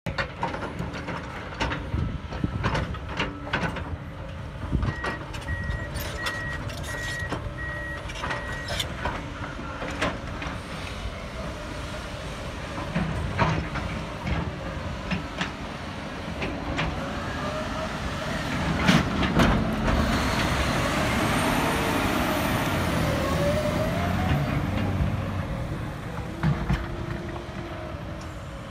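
Bell B45E articulated dump truck's diesel engine working hard as the truck drives past close by, building to its loudest about two-thirds of the way through with a gliding whine over the engine note. Earlier there are sharp clanks and knocks of digging machinery, and a reversing alarm beeps steadily for a few seconds.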